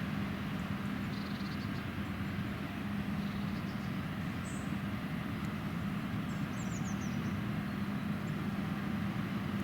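Combine harvester running steadily, a John Deere X9 1100 harvesting oilseed rape: an even engine and threshing drone with a low hum. A few faint high chirps sound over it about halfway through.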